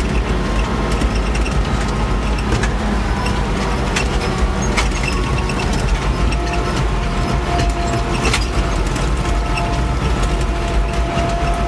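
Farm tractor engine running steadily as the tractor drives, with a couple of sharp clicks and a thin whine that comes in about halfway through.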